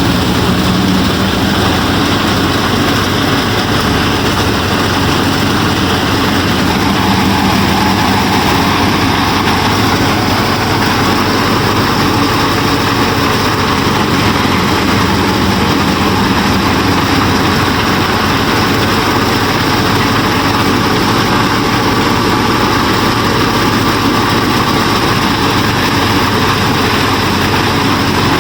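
Steady engine-like running of a DIY mini combine harvester and wheat thresher at work: an even, unbroken drone with a few faint whining tones that shift slightly over time.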